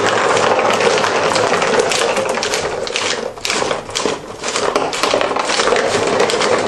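Cardboard marble run with hand-cranked escalators running: glass marbles clatter on the steps and tracks and the mechanism rattles in a dense, continuous stream of fast clicks, easing briefly a little past halfway.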